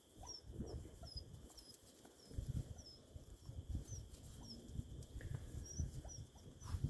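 Puppies crowding a food bowl and eating, with a steady run of soft, irregular bumps and jostling noises as they push at the bowl and each other.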